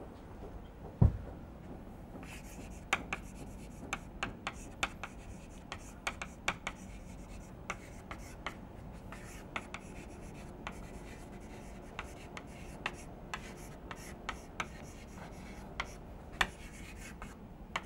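Chalk writing on a blackboard: a run of short, sharp taps and scratches as words are written. There is a single low thump about a second in.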